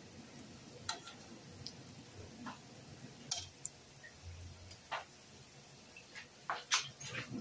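Sesame-coated binangkal dough balls deep-frying in hot oil: a faint steady sizzle with about ten irregular pops and crackles from the oil.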